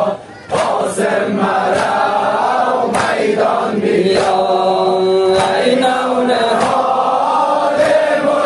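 Shia Muharram noha (mourning lament): voices chanting together, with a long held note about halfway through.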